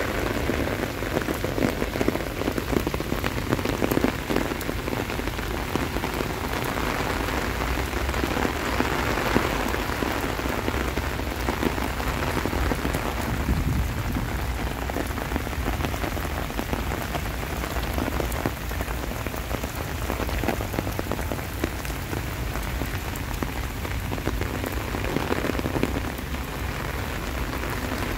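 Steady rain falling, a dense patter of many small raindrop taps.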